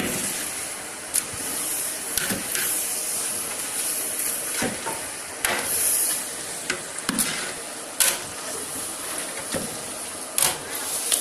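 Food sizzling steadily in a large cooking pot, with scattered sharp knocks and clatters every second or two, typical of a utensil working in the pot.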